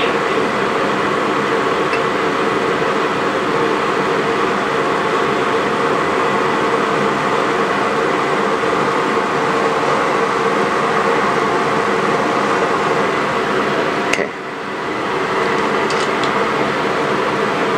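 Laboratory fume hood exhaust airflow: a steady rushing noise with an even hum under it. A sharp click comes about fourteen seconds in, and a few faint ticks follow a couple of seconds later while the bottle is being capped.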